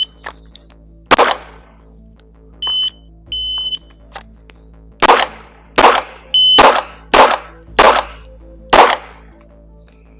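Glock 43X 9mm pistol shots with the high steady beeps of a shot timer: one shot about a second in, beeps near the middle, then a string of six shots over about four seconds, with another beep among them.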